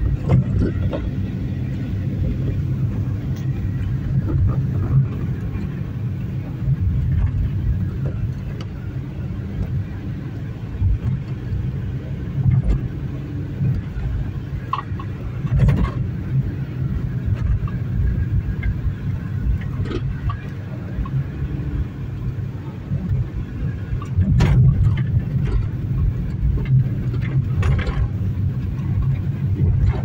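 Car cabin noise while driving on an unpaved dirt road: a steady engine and tyre rumble, with a few short knocks from the bumps, the clearest about halfway through and twice near the end.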